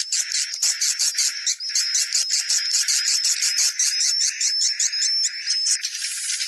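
Swiftlet lure call played back: dense, rapid, high-pitched chirping and twittering, with a harsher hissy texture near the end.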